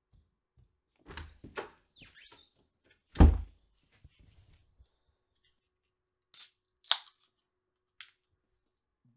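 Close handling sounds: rustling and a few clicks, then a heavy thunk about three seconds in, the loudest sound. A little after six seconds comes a short hiss, followed by a sharp click and, a second later, a faint one.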